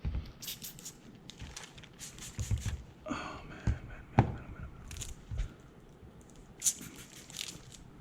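Window tint film and tools being handled: irregular crinkling, rustling and scraping, with a few sharp knocks in the middle.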